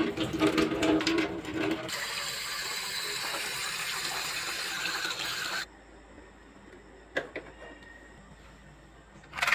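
Water running from a tap for about three and a half seconds, then shut off suddenly; a faint click follows a little later.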